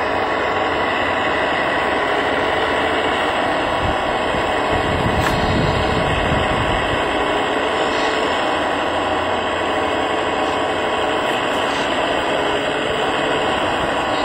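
Radio-controlled Wedico CAT 345D scale hydraulic excavator working, its hydraulic pump and motors giving a steady mechanical whine, with a low rumble swelling about five seconds in.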